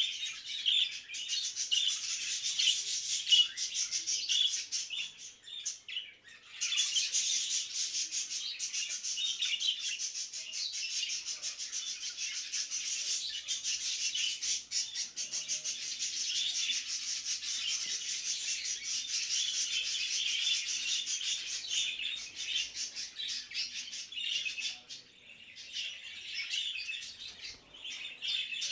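A flock of budgerigars chattering and warbling nonstop in fast, scratchy runs of high chirps. This is the mating chatter of breeding budgies. The chatter dips briefly about six seconds in, then comes back denser.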